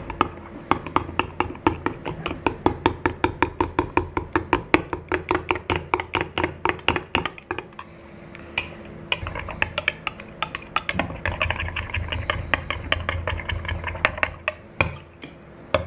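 A stirring utensil clinking rapidly against the sides of a glass measuring cup, about four or five clinks a second, while salt is stirred into heated liquid plastisol for soft-plastic baits. The clinking slows and breaks off about halfway, then picks up again before stopping near the end.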